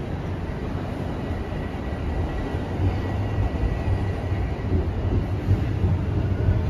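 Toronto subway train heard from inside the car: a steady low rumble of the running train that grows louder about halfway through, with a faint high whine in the middle.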